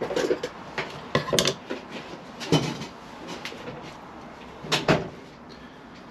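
Irregular knocks and clatters of tools and objects being handled and set down on a workbench, about half a dozen over six seconds, the loudest about five seconds in.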